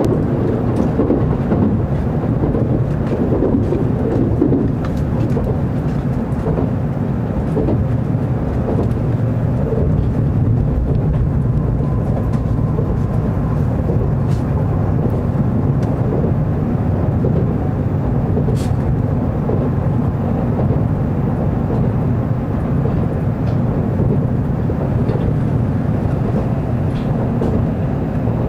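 Steady low rumble of an N700 series Shinkansen running along the line, heard from inside the passenger car: wheels on rail and the car's running noise, with a few faint clicks.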